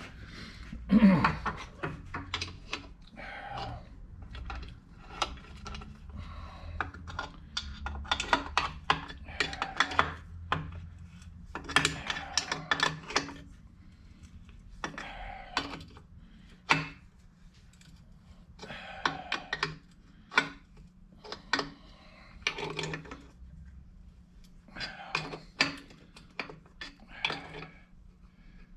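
Short metallic clicks and clanks in irregular clusters, hand tools working on steel as the bolts holding the transmission to the angle plate are snugged back down, over a low steady hum.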